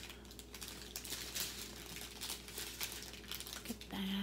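Thin plastic bags of diamond painting drills crinkling in the hands as a strip of sealed bags is handled, in irregular small crackles.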